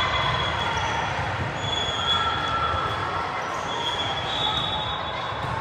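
Volleyball players' athletic shoes squeaking on a gym court floor, several high squeals held for up to a second or so, over the steady din of a sports hall.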